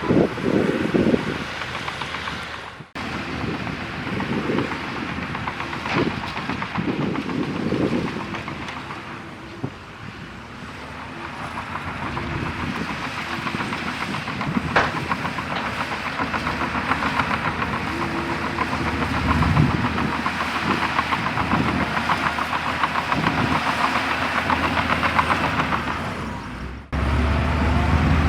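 Bulldozer working soil: its diesel engine runs under load while the steel tracks clatter and rattle. The sound breaks off abruptly twice, about three seconds in and near the end.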